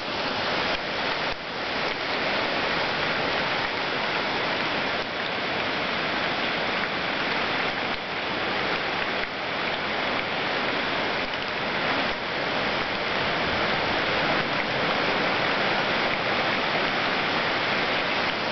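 Steady rushing storm noise of wind through the tree canopy, with rain: the early winds of a hurricane that has not yet made landfall.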